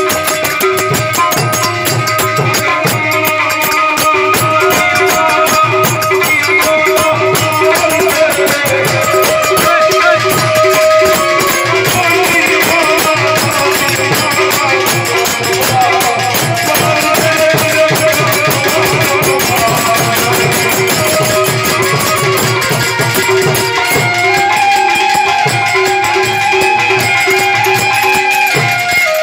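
Live Gujarati devotional bhajan: a harmonium plays steady held chords under a man's singing, with a tabla and a jingling hand percussion keeping a quick, steady beat.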